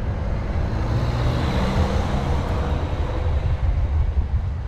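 Wind rushing and buffeting over the microphone of a GoPro Max action camera on a moving road bike, a steady low rumble with a faint hum between about half a second and two and a half seconds in.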